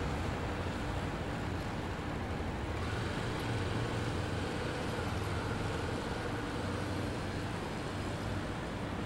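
Steady street traffic ambience: a low hum of road traffic with an engine drone underneath.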